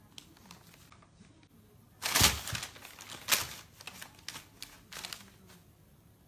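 Rustling and crinkling, loudest about two seconds in, followed by a run of short irregular clicks and scrapes.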